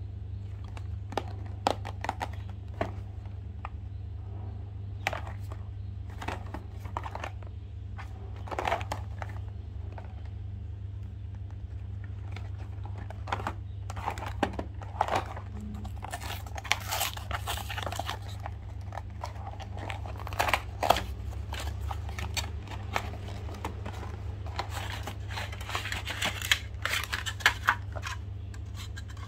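Packaging being handled and unwrapped: irregular crinkling and crackling, busier in the second half, over a steady low hum.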